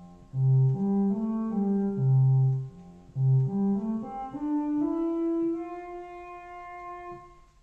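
Behringer Crave monophonic analogue synth playing a cello-like patch with the filter resonance turned down for a mellower tone. It plays a short phrase of low notes, then a note that slides up in pitch and is held, slowly fading.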